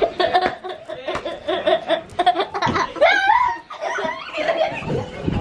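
People laughing in quick repeated bursts, with a high rising-and-falling squeal about three seconds in.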